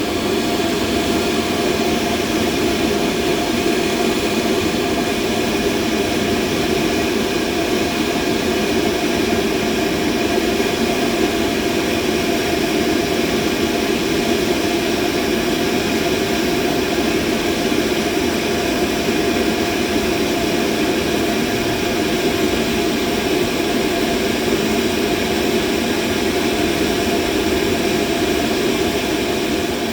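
Steady machine hum: a constant mid-pitched whirring noise with a few faint steady tones above it, unchanging throughout.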